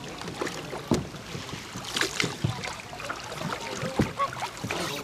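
Open canoes on the water: paddles dipping and splashing, with irregular sharp knocks of paddles against the hulls.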